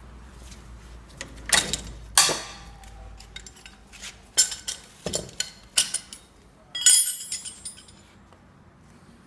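Steel gear puller clanking against metal as it is taken off the propeller shaft: two sharp clanks about a second and a half and two seconds in, the second one ringing, then a run of lighter metallic clicks and a jingle near the end.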